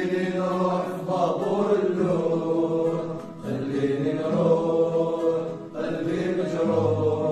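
A song: a solo voice singing drawn-out melodic phrases over backing music, each new phrase starting every two to three seconds.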